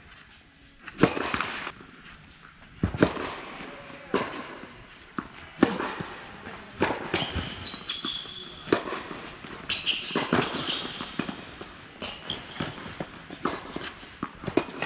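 Tennis ball struck by rackets and bouncing on an indoor hard court during a rally, with sneakers squeaking briefly several times; the loudest hits come about one and three seconds in.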